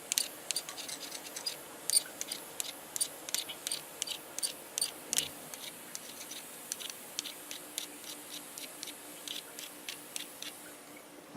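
Hot tip of a butane soldering iron being scraped and wiped clean: a run of quick, irregular scratchy clicks, a few a second, that stop near the end.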